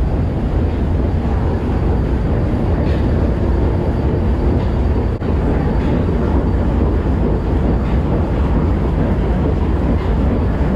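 Steady low rumble of the coal-fired steamship TSS Earnslaw under way, with a brief dip about five seconds in.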